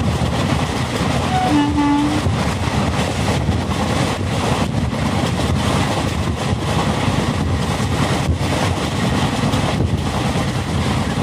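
Malwa Express passenger train running at speed, heard from an open coach door: a steady rumble of wheels on rail with rushing air. A short tone sounds about two seconds in.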